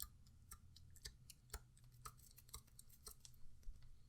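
Near silence with faint, irregular small clicks, a few a second, over a low steady hum.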